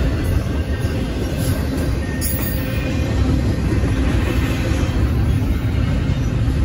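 Double-stack intermodal freight cars rolling past a grade crossing: a steady, loud rumble of steel wheels on rail.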